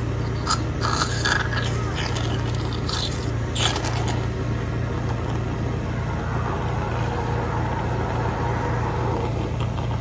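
Steady low hum of a respiratory machine running. Wet scraping and slurping from a suction tube in a child's mouth come in the first few seconds. Later a rush of air through the mask hose swells and fades, a breath from the cough-assist machine.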